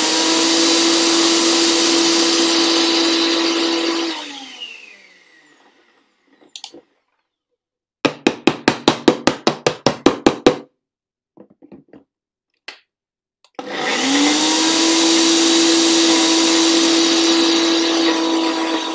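A jug blender runs at full speed on a thick raw hummus mixture, then is switched off and winds down. After a pause comes a quick run of about twenty sharp knocks, roughly eight a second. The blender then starts up again, rising in pitch as it gets up to speed and then running steadily.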